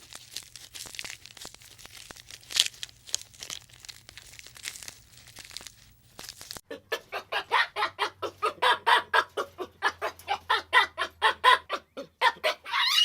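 Faint scattered clicks for the first six seconds or so, then a chicken clucking in a fast, even series of short calls, about four a second, with a brief rising squawk near the end.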